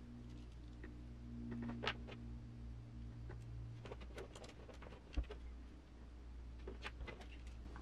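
Faint clicks and taps of small RC crawler driveshaft parts and pins being handled, with a sharper click about two seconds in and another about five seconds in, over a low steady hum.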